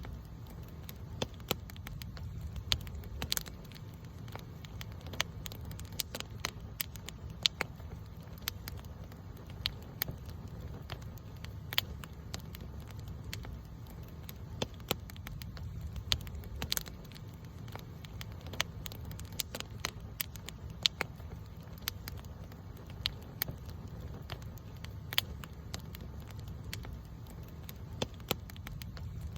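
Wood campfire burning, with irregular sharp crackles and pops, several a second at times, over a steady low rumble.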